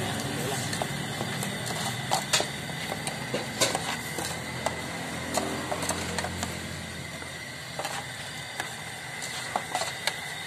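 Metal spoon stirring and scraping in an aluminium saucepan, with irregular sharp clinks of the spoon against the pot over a steady hiss.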